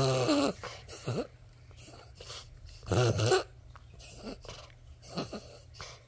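Small dog's laboured, wheezing breaths, harsh and honking: a loud gasp at the start and another about three seconds in, with fainter ones between. The owner takes this for an asthma attack.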